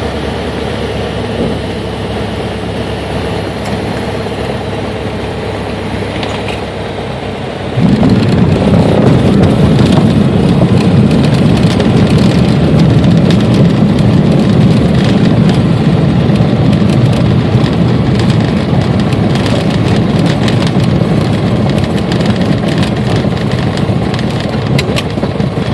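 Small single-engine propeller plane's engine running steadily, heard from inside the cockpit. About eight seconds in, the wheels touch down on a grass runway and a much louder rumble and rattling of the rollout over rough turf takes over, easing a little near the end.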